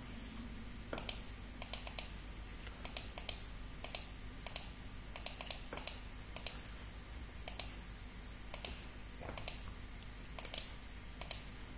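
Irregular clicking of a computer mouse and keyboard, many of the clicks in quick pairs, at about one to two a second.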